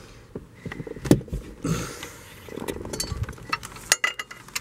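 Scattered metallic clicks and knocks of hands and tools working on the engine's pulleys and drive belt, with a louder knock about a second in.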